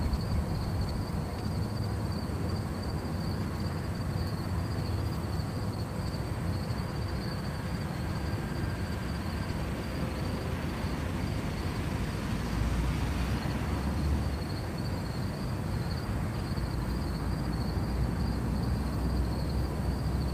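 Outdoor background during a quiet pause: a steady low rumble with a thin, constant high-pitched buzz like insects over it. The rumble swells a little about two-thirds of the way through.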